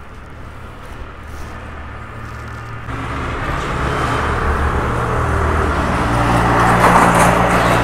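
A motor vehicle's engine running and coming closer, its steady hum and road noise growing louder from about three seconds in.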